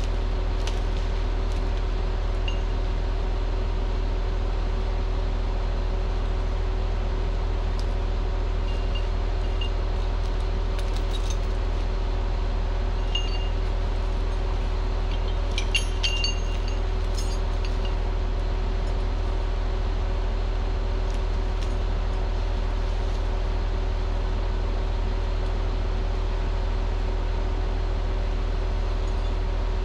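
Rottne H20 forestry machine's diesel engine running steadily with a constant hum and a steady tone, not changing in speed. A few light metallic clinks come near the middle.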